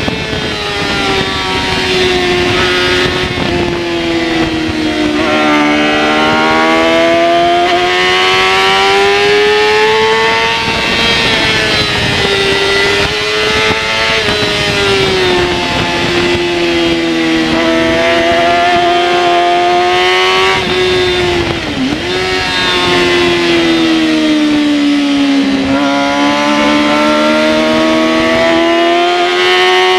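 Yamaha R6's inline-four engine at racing speed on track, its pitch rising and falling with throttle and corners, with a sharp brief dip about three-quarters of the way through.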